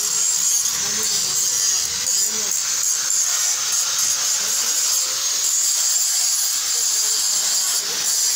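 Angle grinder cutting metal, a steady high-pitched whine and hiss of the disc on the metal.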